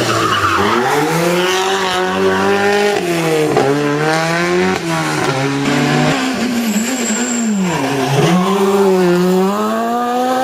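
Rally car engine run hard at high revs, its pitch dropping sharply and climbing again several times as the driver lifts off and gets back on the throttle.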